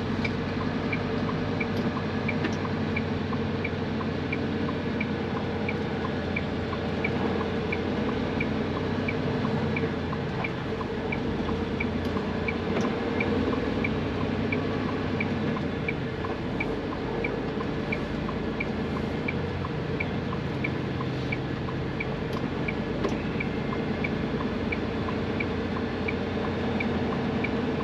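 Semi truck cab interior in slow traffic: steady engine and road drone with the regular ticking of the indicator flasher, about three ticks every two seconds.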